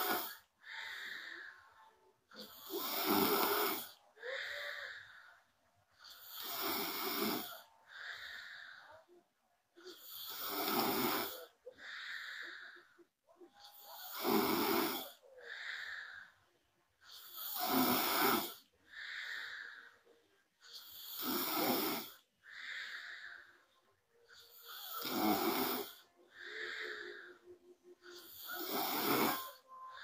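A young woman snoring in a slow, even rhythm, about one breath every three and a half to four seconds, eight in all. Each breath is a loud snore followed by a softer, quieter breath.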